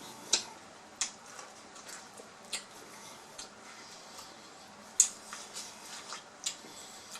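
Close-up eating sounds: wet mouth clicks and lip smacks while chewing grilled chicken, coming irregularly, the loudest about five seconds in.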